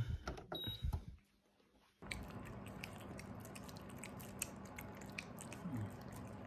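A dehumidifier's control button is pressed, giving a short electronic beep. After a break, two cats lick a squeeze-tube cat treat held in a hand: soft, wet licking clicks over a low, steady hum.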